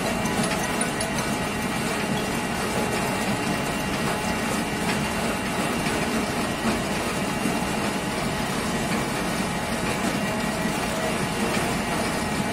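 Mobile apple press's mill and drive machinery running steadily, with an engine hum underneath, while ground apple pulp is fed onto the press racks.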